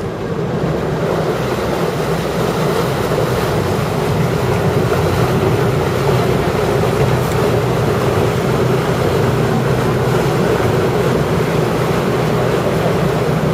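Canal tour boat's engine running steadily under way, a low drone that picks up a little about a second in, with water rushing along the hull.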